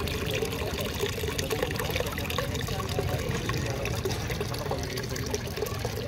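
Small tabletop fountain set among miniature rocks: water trickling and splashing steadily into its basin.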